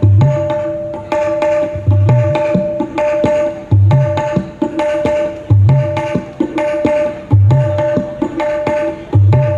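Dangdut gendang played in a steady repeating groove: ringing, sharply pitched strokes on the small high head, with a deep bass stroke that bends in pitch about every two seconds.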